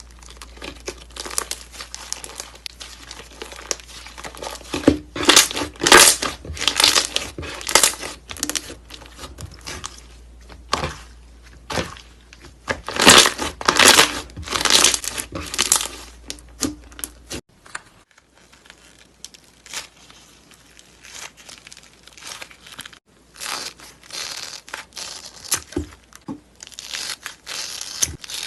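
Slime being squeezed, pressed and stretched by hand, with dense crackling and popping that comes in bursts. A low hum under the first part stops at a cut about two-thirds of the way in, and after it the crackling is quieter.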